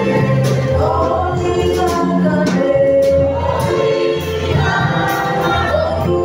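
Choir singing a gospel song, with steady low bass notes and regular percussion hits underneath.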